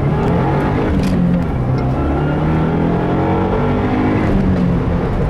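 2015 Subaru WRX's 2.0-litre turbocharged flat-four engine on a Stage 1 tune, pulling hard from first gear: the engine note climbs in pitch and drops back more than once as it runs up through the gears.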